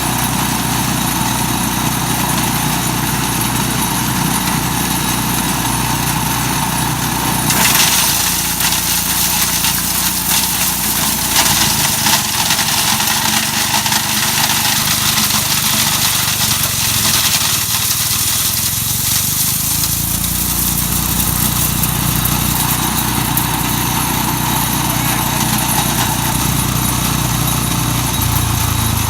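Mighty Mac wood chipper running with its engine under load as black walnuts are fed through and ground up. A harsher grinding rush comes in about a quarter of the way through and lasts a few seconds. The engine's low drone then thins for a while before filling back in.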